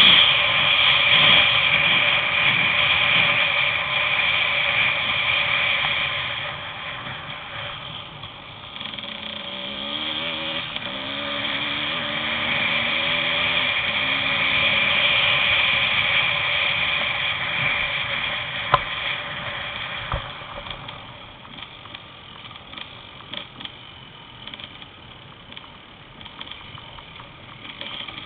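Small motorbike engine running at high revs while under way, a high-pitched whine that swells and fades with the throttle and drops away over the last third. One sharp knock comes about two thirds of the way through.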